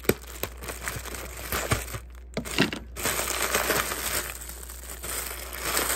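Cellophane treat bag crinkling as it is handled and opened, with scattered sharp clicks; a scissors snip just at the start.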